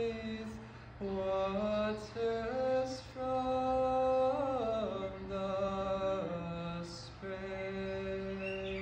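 A man singing slow, long-held notes that slide from one pitch to the next, over a steady low hum.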